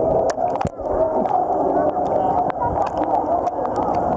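Muffled chatter of a crowd of swimmers inside a sea cave, with water splashing close by and scattered sharp clicks.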